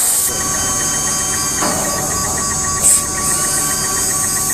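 CNC router running: a steady machine hum with several fixed whining tones. A short hiss of air comes about three seconds in.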